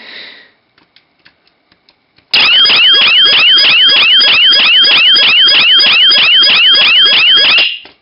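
A few light clicks as keys are pressed on a 4x4 matrix keypad. About two seconds in, the panic-alarm siren comes on very loud, wailing in quick rising sweeps about four times a second, and near the end it cuts off suddenly.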